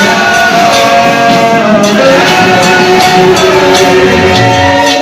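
Live church music played loudly, with long held pitched notes over a regular beat of percussion strikes.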